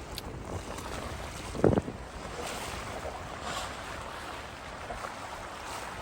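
Wind buffeting the microphone over the wash of ocean surf, with one brief louder thump a little under two seconds in.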